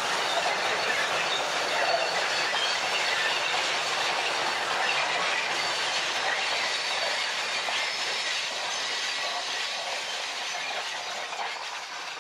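Heritage passenger carriages rolling past on the rails, their wheels running with a steady rush of track noise and a faint high squeal, fading away near the end as the train moves off.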